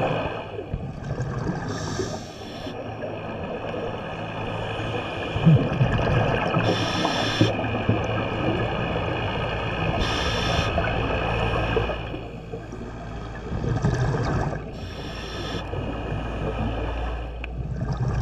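Scuba diver breathing through a regulator underwater: a short hiss of inhaled air about every four seconds, with bubbling exhalations between, over a steady low hum.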